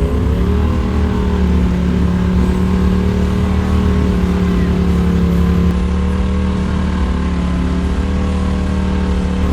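Side-by-side UTV engine running hard under load, holding a fairly steady pitch with small rises and dips.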